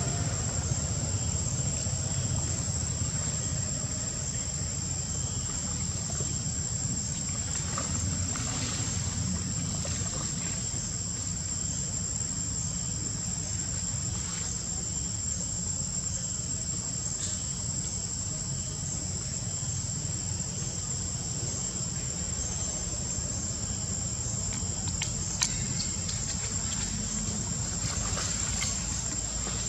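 Steady high-pitched drone of insects, with a low steady rumble underneath and a few faint clicks.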